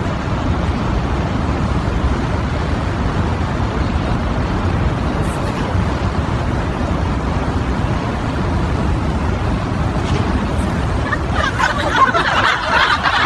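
Steady low rumbling background noise of the road-traffic kind, with indistinct voices joining in about eleven seconds in.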